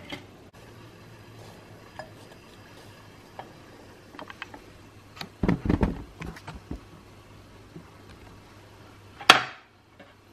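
Kitchen bowls and utensils handled on a counter: scattered light knocks and clinks, a cluster of heavier knocks and thuds about halfway through, and one sharp, loud clink near the end that rings briefly.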